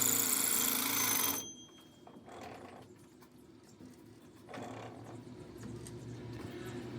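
Loud, harsh workshop power-tool noise that cuts off sharply about a second and a half in, leaving a quieter steady machine hum with scattered light clicks.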